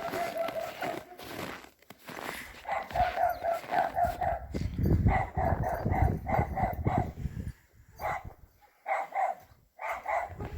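Dog barking in quick runs of short, high barks, several a second, with pauses between the runs. A loud low rumble of noise runs under the barking in the middle.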